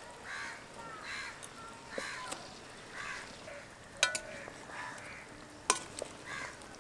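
Birds calling over and over in short, pitched calls, while a metal spatula knocks sharply twice against an aluminium kadai: once about four seconds in and again near six seconds, as fried fish are stirred into the curry.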